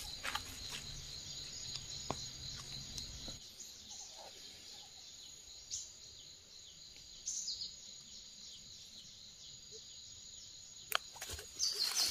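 Steady high-pitched insect chorus of the forest, running throughout, with a few soft clicks and short chirps over it. Near the end, dry leaves crackle loudly as hands work in the leaf litter by the mushroom basket.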